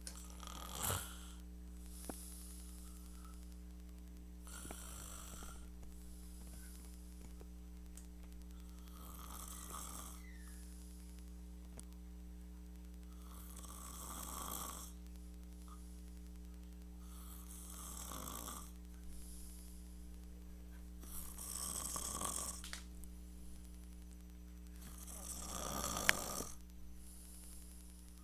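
A man snoring, one snore about every four seconds, over a steady electrical hum.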